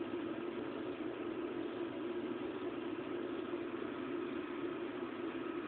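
Persian cat purring steadily right at the microphone, a continuous fast-pulsing rumble.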